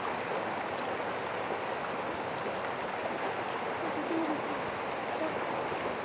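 Mountain stream running over rocks: a steady rush of water.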